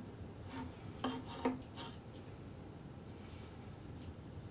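Light wooden taps and rubbing as a ukulele kit's fretboard is laid on the bare wooden neck and lined up: a few short knocks in the first two seconds, then only faint handling.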